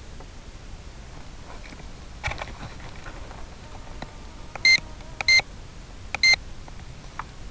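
Three short electronic beeps: two about half a second apart, then a third a second later, over a steady hiss.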